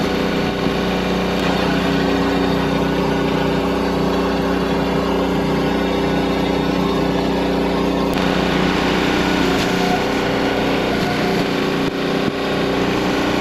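Small gasoline engine of a Split-Fire 2265 log splitter running at a steady, even speed, with the hiss above it getting brighter about eight seconds in.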